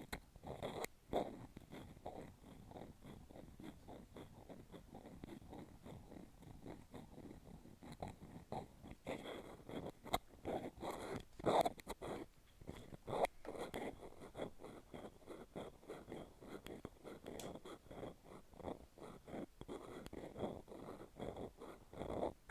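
Close-miked rapid scratching and clicking against a hollow capsule, a dense run of small ticks and scrapes with a few louder clicks about halfway through.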